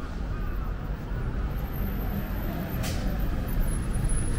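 Street traffic: vehicles running past, growing louder toward the end, with one sharp click about three seconds in.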